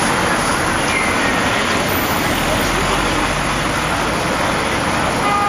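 Steady street noise: an even din with no distinct events.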